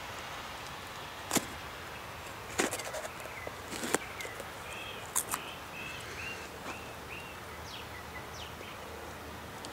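A knife cutting and breaking open a crisp red bell pepper: several sharp cracking snaps over the first five seconds as the firm flesh gives way, the crunch of sound, not soft, fruit. A bird chirps repeatedly in the background from about three and a half seconds in.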